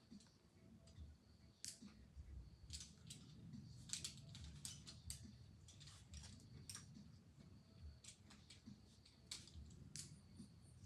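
Faint scattered scuffs and taps, thickest in the middle, over a faint steady high-pitched tone.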